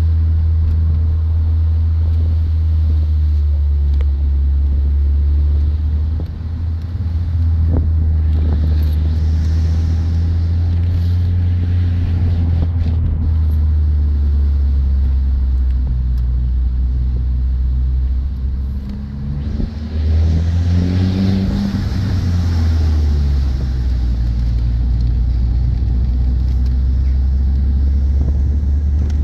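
Car engine and road noise heard from inside the cabin while driving: a steady low drone that dips briefly twice. About two-thirds of the way through, the engine note climbs in pitch as the car accelerates.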